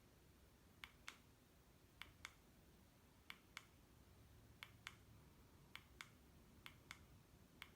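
Small plastic buttons on a wireless LED light remote being pressed over and over, each press giving a pair of light clicks: seven pairs at a steady pace of about one a second, stepping the lights' brightness down.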